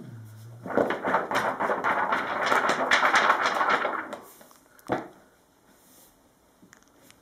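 Loose paper leaves of a Tibetan pecha being lifted and shuffled, a dense crackling paper rustle for about three seconds, then a single sharp tap a little before five seconds in.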